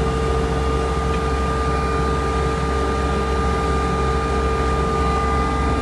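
A vehicle's engine running steadily: a low, unchanging drone with a constant whine over it.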